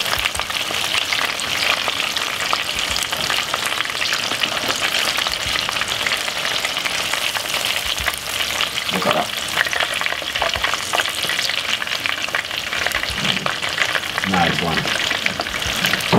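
Breadcrumb-coated chicken pieces deep-frying in a pot of hot oil: a steady, dense crackle and sizzle of bubbling oil.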